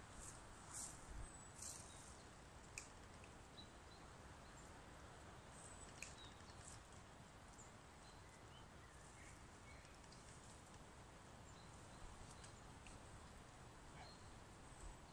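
Near silence: faint forest ambience with a steady low hiss, a few faint short high chirps scattered throughout, and a handful of soft clicks in the first few seconds.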